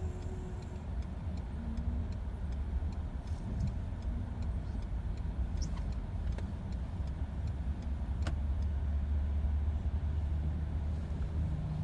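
Low, steady rumble of a car heard from inside its cabin, with faint, evenly spaced ticking and a single sharp click about eight seconds in.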